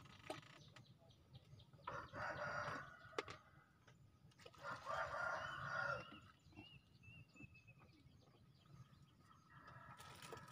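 Bird calls: two louder calls of about a second each, then faint high chirping.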